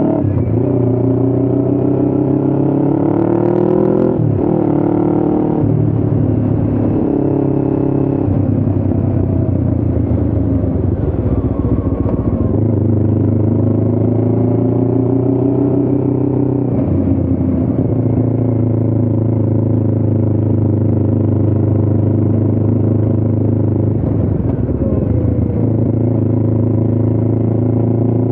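A small motorcycle engine riding along. Its pitch climbs with the revs and drops sharply at gear changes about four times, holding steady in between.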